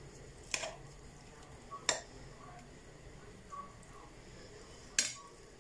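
A metal spoon clicking three times against a dish while rice is scooped into raw squid tubes: a sharp click about half a second in, another near two seconds and a third about five seconds in.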